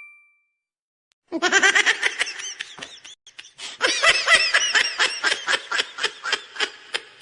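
A laughing sound effect: a voice laughing in quick, high-pitched repeated ha-ha pulses, in two runs with a short break about three seconds in.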